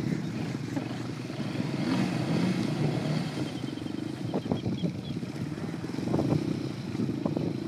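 ATV engine running steadily at moderate revs, with a few light knocks.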